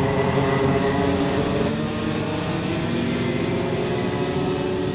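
Several 125cc two-stroke racing kart engines running at high revs together, their overlapping whines shifting slightly in pitch as the karts pass.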